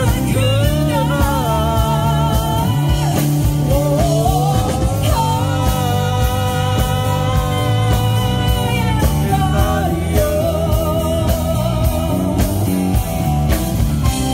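Live band playing with a singer: the vocal wavers with vibrato over a steady band accompaniment and holds one long note in the middle.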